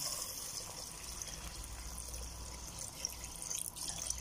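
Water being poured into a pot of uncooked rice and corn kernels, a steady splashing trickle as the rice is filled with water for cooking.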